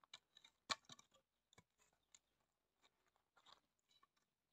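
Sparse, faint wooden knocks and cracks from split firewood being handled and levered, with one sharper knock just under a second in.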